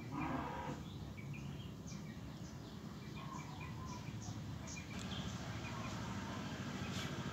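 Small birds chirping, short high chirps scattered throughout, over a steady low background hum. A louder, lower call stands out right at the start.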